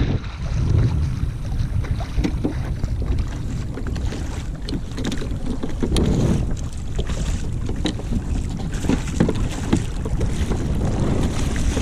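Wind buffeting the microphone on a fishing kayak at sea, a steady low rumble, with water splashing and scattered small knocks against the hull.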